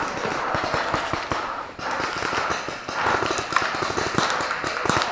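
Paintball markers firing: a rapid, irregular run of sharp pops, with a short lull just before the two-second mark.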